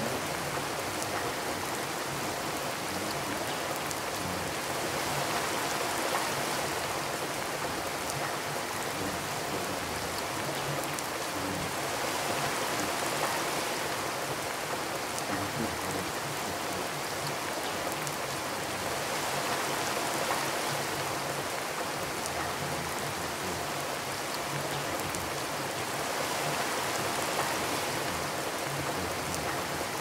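Heavy rain beating down steadily, a dense even hiss that swells and eases slightly every several seconds.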